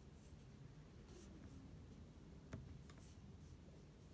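Near silence with faint finger strokes on a laptop touchpad and a single click about two and a half seconds in.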